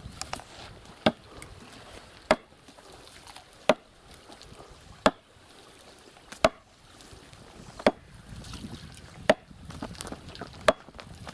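Heavy sledgehammer striking the top of a wooden stake, driving it into an earth bank. There are eight sharp blows, about one every second and a half.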